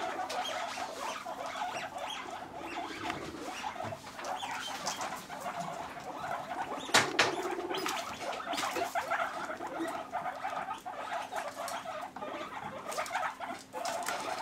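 Guinea pigs scrabbling and rustling in wood-shaving bedding around a metal food bowl, with many small clicks and patters, and one sharp knock about seven seconds in.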